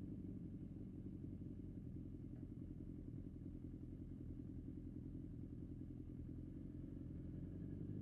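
BMW S1000XR's inline-four engine running steadily at low revs while the motorcycle rolls slowly along.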